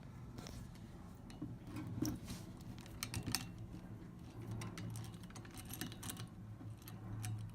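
Irregular small clicks and scrapes of a wing corkscrew being turned and handled on a wine bottle, over a steady low hum.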